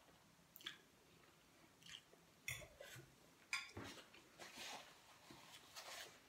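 Faint chewing and soft mouth clicks from a person eating a mouthful of spaghetti, with a light rustle of a paper napkin in the second half.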